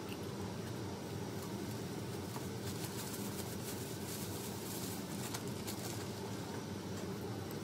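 Steady low background hum with hiss, even in level throughout, with a few faint light clicks about three to five seconds in.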